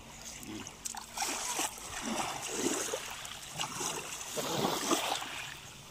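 Water splashing and sloshing in several uneven washes, with a few small knocks.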